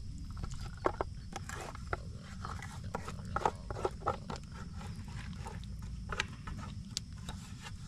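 Scattered sharp clicks and light clinks of cookware and utensils being handled during camp cooking, over a steady low rumble.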